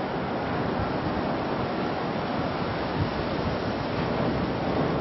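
Steady rushing wind and water noise on open harbour water, with wind buffeting the microphone.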